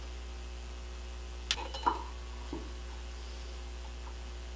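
A hand tool clinks against the metal locking tabs on a motorcycle front brake rotor's bolts as the tabs are bent up to lock the bolts. There are two sharp metallic clinks with a short ring about a second and a half in, then a softer knock, all over a steady low hum.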